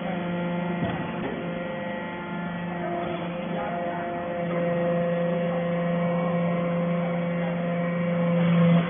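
Steady machine hum of a hydraulic baling press for steel chips running, made of several held tones. It grows louder over the second half and drops off sharply near the end.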